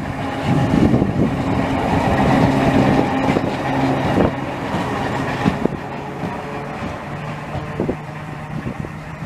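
A 1907 Schlick-built S-type heritage electric tram with a trailer car passing close by: wheels rumbling and knocking on the rails over a steady low hum. It is loudest over the first few seconds and fades as the tram moves away.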